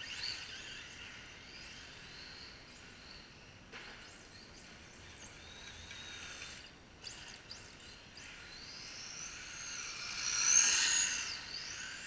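Radio-controlled drift cars' electric motors whining, the pitch rising and falling quickly with the throttle as they slide around. The whine is loudest as a car passes close, about ten seconds in.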